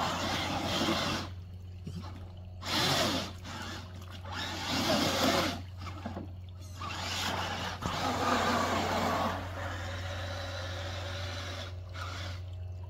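Electric motors and gears of radio-controlled crawler trucks whirring in several separate bursts of throttle, the pitch rising and falling with each burst, over the background noise of creek water.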